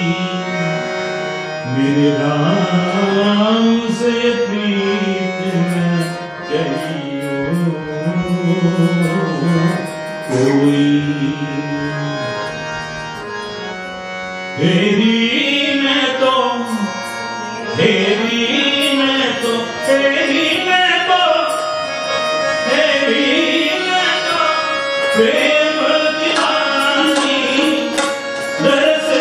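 A man singing an Indian-style song into a microphone, his voice sliding and ornamenting through long phrases, over a sustained instrumental accompaniment with hand-drum strokes.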